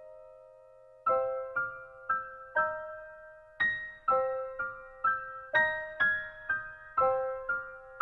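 Soft background piano music: a held note, then single notes struck about twice a second from about a second in.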